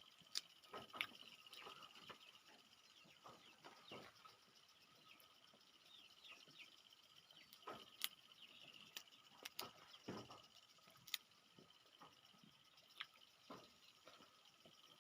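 Faint eating sounds from peanuts being shelled and chewed: scattered clicks and small cracks, a few sharper snaps among them.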